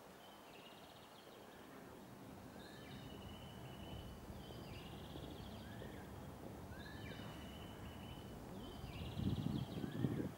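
A songbird singing the same short phrase over and over, a rising note, a held whistle and a quick trill, every couple of seconds, played back through an installation's speakers. A louder low rumble comes in about nine seconds in.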